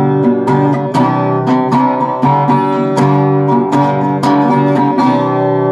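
Rosewood six-string acoustic guitar strummed in a steady rhythm of chords, about two strokes a second, with the last chord left ringing near the end.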